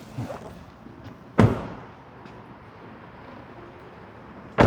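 Two heavy thumps from an SUV's door, one about a second and a half in and one near the end, three seconds apart.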